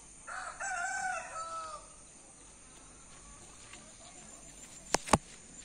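A rooster crows once in the background, a single pitched call about a second and a half long that drops in pitch at its end. Near the end there are two sharp knocks close together.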